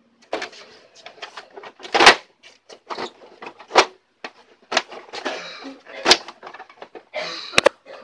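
Irregular clicks, knocks and scraping of the plastic parts of a Brother DCP-T310 inkjet printer being handled. Sharp knocks come about two seconds in, near four seconds and about six seconds in, with a quick double click near the end.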